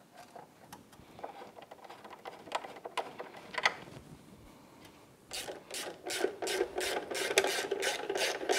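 Hand ratchet wrench clicking steadily, about five clicks a second, as fender bolts on a motorcycle's front fork are run in loosely. It starts about five seconds in, after a few faint taps and rattles of parts being handled.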